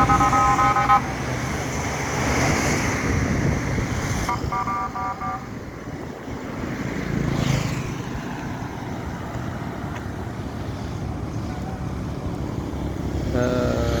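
Road traffic passing, a steady rumble of engines and tyres, with two short bursts of repeated horn beeps: one at the start and one about four seconds in.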